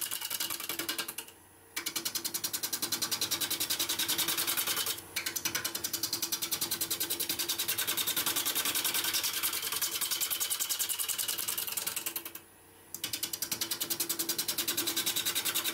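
Bowl gouge cutting a spinning wooden bowl blank on a wood lathe: a rapid, even ticking chatter of the tool on the wood, with two short breaks, one about a second in and one near the end.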